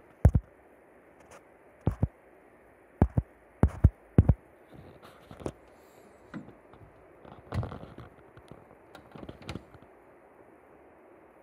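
Irregular sharp knocks and clicks from handling a small electronic safe inside a wooden wardrobe, the safe's door being opened. The loudest knocks come close together in the first four seconds, then fainter scattered clicks follow.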